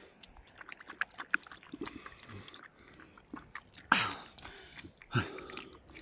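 A dog and a man drinking from a shallow puddle on rock: quick wet lapping clicks, then two louder slurps about four and five seconds in.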